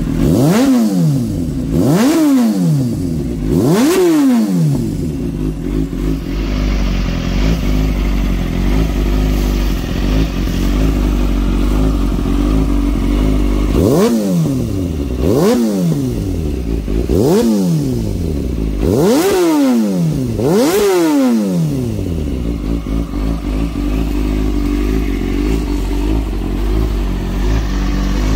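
2003–04 Kawasaki ZX-6R 636's inline-four running through a Black Widow aftermarket exhaust, idling and blipped by hand. There are three quick revs near the start, a steady idle for about ten seconds, then five more revs in quick succession, each rising sharply and falling back to idle.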